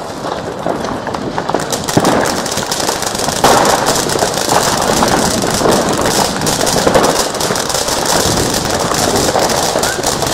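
Weco Laser fountain-battery firework burning: a steady hiss of spraying sparks, thick with fast crackling. It grows louder about two seconds in.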